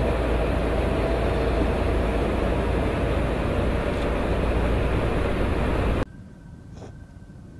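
Steady, loud in-flight jet engine and slipstream roar with heavy low rumble, heard from a tanker's boom position during aerial refuelling. It cuts off abruptly about six seconds in, giving way to a much quieter distant jet hum with a faint high whine.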